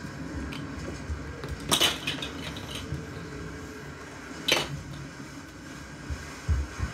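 Small hard toys clattering together as they are handled and dropped, two clattery bursts about two and four and a half seconds in. A few soft low thumps follow near the end.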